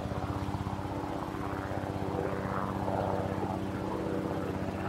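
A steady engine drone with a fast, even pulse.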